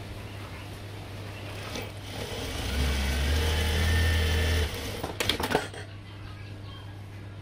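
Sewing machine stitching a short run of about two seconds, starting about two and a half seconds in and cutting off abruptly, followed by a few sharp clicks. A steady low hum lies underneath throughout.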